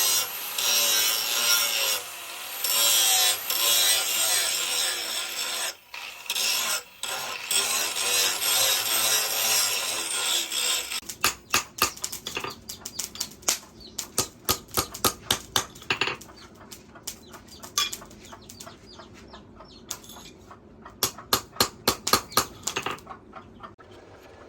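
Hand-finishing of a forged leaf-spring steel chisel, steel rubbed against an abrasive or file. For about ten seconds there is a continuous rough rubbing, then it turns to quick short strokes, about three a second, which thin out to scattered strokes near the end.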